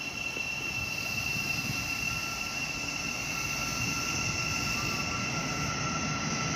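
Electric multiple-unit passenger train running past slowly, a steady high whine over a low rumble, growing a little louder.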